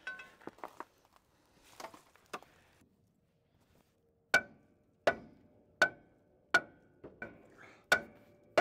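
Hammer blows ringing on steel at the seized front brake drum of a 1968 Ford F350, knocking it to break it loose. After some faint tool clatter, the blows start about halfway through and come steadily about one every 0.7 seconds.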